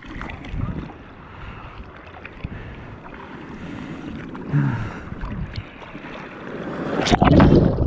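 Ocean water sloshing and lapping against a camera held at the surface, with wind buffeting the microphone. About seven seconds in, a loud rush of water as a wave surges past.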